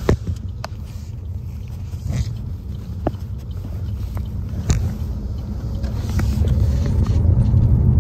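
Low, steady rumble of a car heard from inside the cabin, growing louder over the last few seconds, with a few light clicks and knocks close to the microphone.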